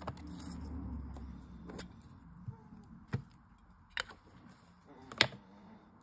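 Clear acrylic stamp block and plastic stamp packets handled on a craft mat: a low rumble of handling in the first second or so, then a few separate sharp clicks and taps of plastic, the loudest about five seconds in.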